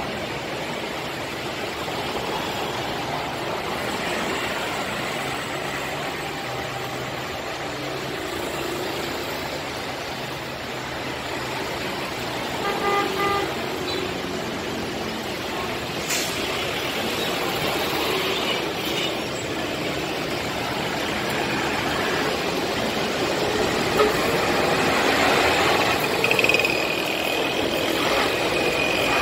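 Steady road traffic noise from cars, trucks, motorcycles and tricycles on a multi-lane highway, with a vehicle horn honking briefly about 13 seconds in. The traffic noise grows louder near the end.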